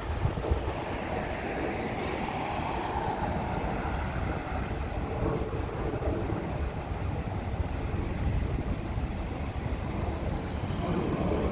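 Road traffic noise: a steady wash of passing vehicles' tyres and engines with a low rumble, swelling a little about two to three seconds in.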